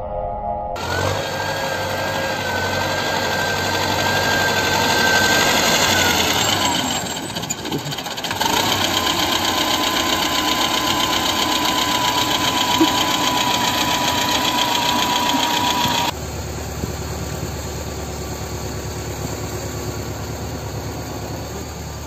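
T-40 tractor's air-cooled diesel engine running, with a high whine over it that falls in pitch about six seconds in. A steady whine runs through the middle, then the sound cuts abruptly to a quieter run of the engine about two-thirds of the way through.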